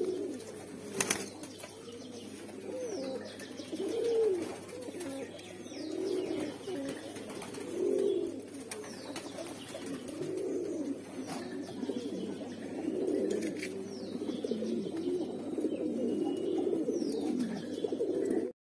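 Mookee pigeons cooing, their low rising-and-falling coos overlapping every second or two, with a sharp knock about a second in. The sound cuts off suddenly near the end.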